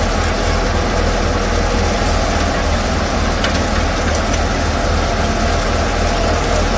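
Fiat 480 tractor's diesel engine running steadily under load, driving a PTO wheat thresher whose spinning drum and fan make a loud, continuous whirring din while pearl millet stalks are threshed.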